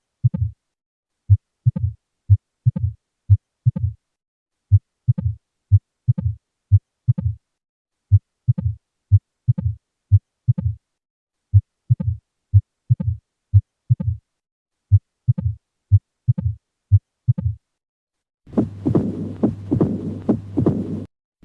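Stethoscope recording of heart sounds in mitral stenosis: short low heartbeats, about two a second, in runs of several beats broken by brief gaps. About 18 seconds in, a different recording takes over, with a continuous rumbling murmur under the beats.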